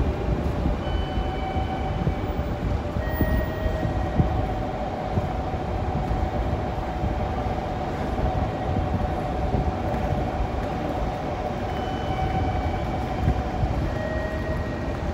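Railway station platform ambience: a steady low rumble with a constant hum, typical of train and station machinery noise. A few faint short high tones come about a second in and again near the end.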